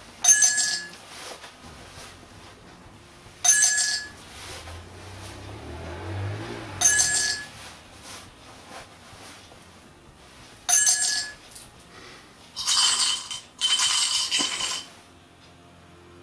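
Handy Sound, a small palm-hidden electronic sound-effect device, playing recorded coin sounds: four single coin clinks a few seconds apart, as if coins were dropping into a mug, then two longer jingling bursts of coins rattling together near the end.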